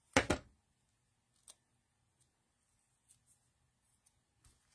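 A short knock about a quarter second in, then a few faint taps and rustles as a card-stock panel is laid onto a card base and pressed down.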